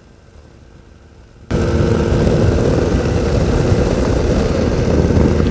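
Two-stroke ultralight engine and propeller droning in flight, faint at first, then about a second and a half in suddenly much louder with heavy wind and propeller noise.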